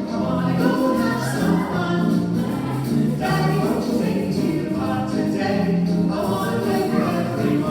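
Group singing with music: several voices singing a song together over a steady accompaniment.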